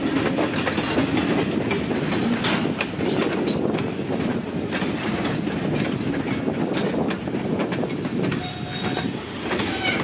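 Loaded log cars of a freight train rolling past, wheels clicking and clacking over the rail joints as the train brakes to a sudden stop.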